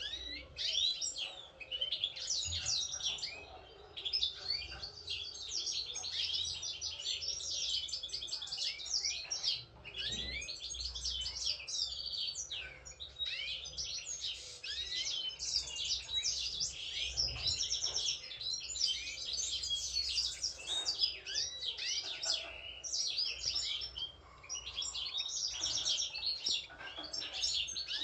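European goldfinch song: a fast, unbroken twittering of high chirps and trills.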